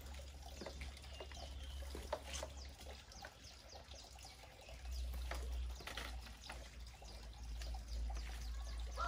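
Outdoor farmyard ambience: scattered short bird chirps and clicks over a low steady rumble, which swells from about halfway through.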